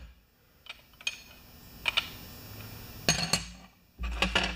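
Metal clinks and knocks from handling a socket wrench and the brass fitting on a pressure washer wand: a few separate sharp clinks, then a louder cluster about three seconds in and another near the end.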